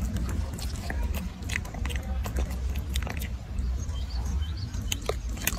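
Macaque biting and chewing a banana: scattered soft mouth clicks and smacks over a steady low rumble.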